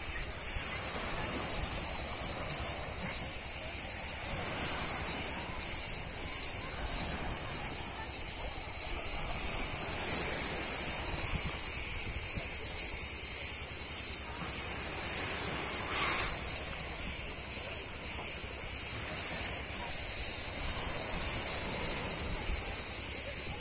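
A dense chorus of cicadas, a steady high-pitched buzzing drone with a faint pulsing in it.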